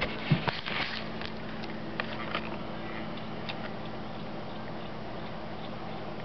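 Raccoon drinking from a water-filled barrel lid: small wet laps and splashes with a few sharp knocks, bunched in the first second and sparser after, over a steady low hum.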